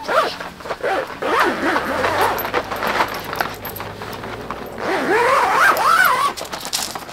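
Rustling and scraping of padded fabric floor mats being slid and straightened by hand, with small ticks. Twice, near the start and about five seconds in, a voice-like sound slides up and down in pitch.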